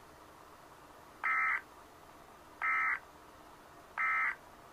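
Emergency Alert System end-of-message signal: three identical short bursts of digital data tones, each about a third of a second, about a second and a half apart, closing the severe thunderstorm warning broadcast.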